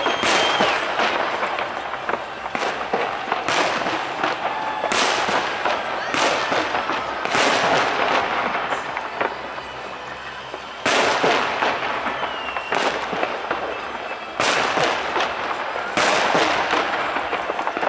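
Fireworks display: aerial shells bursting in quick succession, roughly one bang every second or so, with crackling between the bursts. There is a short lull about nine seconds in before the bangs resume.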